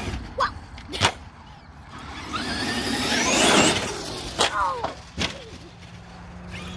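Electric RC truck's motor whining higher and higher as it speeds up, loudest about three and a half seconds in. Sharp clacks of the truck hitting the concrete come about a second in and twice more after the whine, as it lands from a jump.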